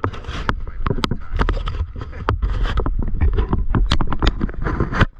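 Irregular clicks and knocks of parts and tools being handled, a dozen or more sharp hits, over a low rumble. The hits stop suddenly just before the end.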